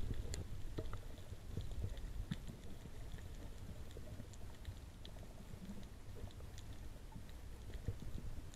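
Underwater reef ambience picked up by a camera's microphone below the surface: a steady low rumble of moving water with scattered faint clicks and crackles.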